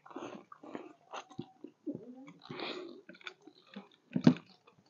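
Two people slurping and chewing spicy instant noodles eaten off chopsticks, in short irregular mouthfuls, with a louder slurp about four seconds in.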